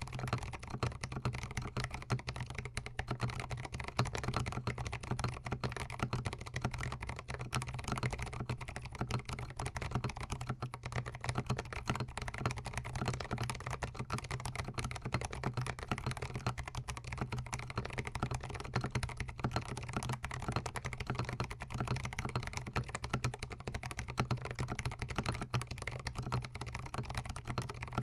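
Continuous fast typing on a GMMK Pro gasket-mount mechanical keyboard fitted with Zealios tactile switches, a dense, steady stream of key strikes with a deep low-end thud.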